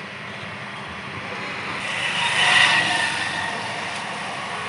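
Street traffic noise, with a vehicle passing close by, swelling and fading about two to three seconds in.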